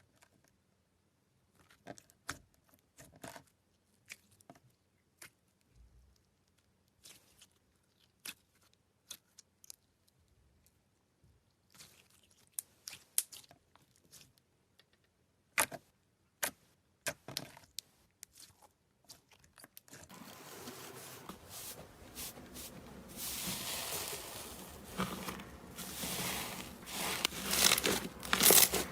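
Slime being handled, poked and pressed: scattered sticky clicks and pops, then, about two-thirds of the way in, a continuous crackling and crinkling that grows louder.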